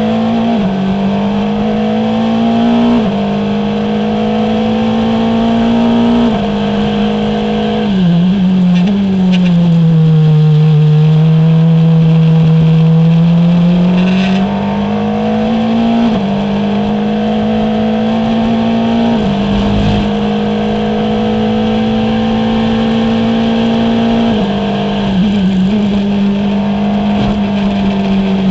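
Formula Renault 2.0 race car's two-litre four-cylinder engine heard onboard at high revs, the pitch stepping down at each upshift. About eight seconds in, a quick run of downshifts drops it into a slow corner, where the revs climb back gradually before more upshifts. Another short run of downshifts comes near the end.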